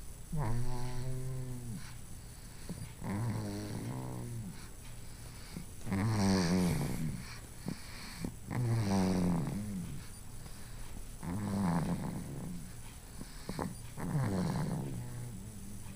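Snoring in sleep: about six drawn-out, pitched snores, each a second or so long, coming roughly every two and a half seconds and dipping in pitch as each one ends.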